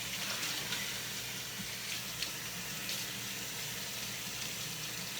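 Kitchen tap running steadily into a sink, with a few light clicks.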